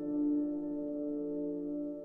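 Ambient background music: a sustained chord of held tones, slowly fading.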